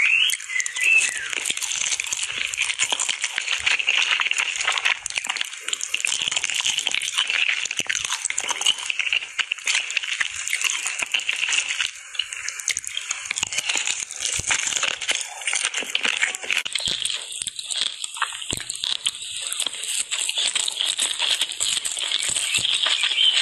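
Close-miked eating of fried chicken with chili and rice: a steady, dense crackle of chewing, with many small wet clicks and crunches.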